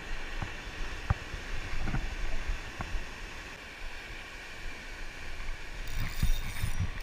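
Ocean surf washing against rocks, with wind on the microphone and a few brief knocks from handling. The noise grows denser about six seconds in.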